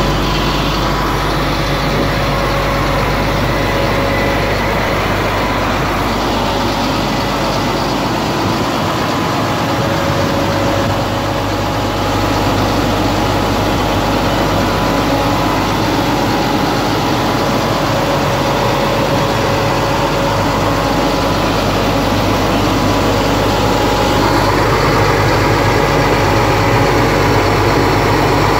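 Chevrolet medium-duty tow truck's engine idling steadily.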